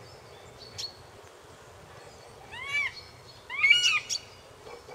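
Calls of a bird of prey during a confrontation between a juvenile northern goshawk and a common buzzard: one short call that rises and falls in pitch about two and a half seconds in, then a louder burst of two or three overlapping calls about a second later. A short high chirp comes just under a second in.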